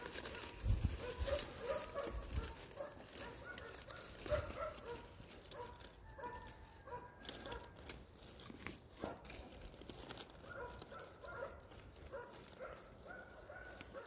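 Hand digging and brushing through loose forest soil and dead leaves: soft, scattered rustling and scraping, with a few dull thumps in the first few seconds.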